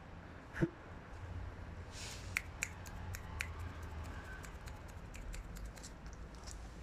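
Husky puppy's claws clicking and ticking on a stone tile floor as it moves about, after a single short, sharp sound about half a second in.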